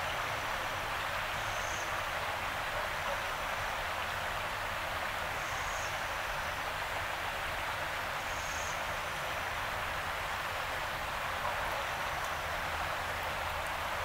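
Yarra River water flowing steadily, an even hiss with no change. Faint short high-pitched chirps sound a few times over it.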